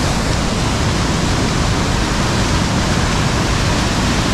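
Steady rush of a waterfall cascade tumbling over granite.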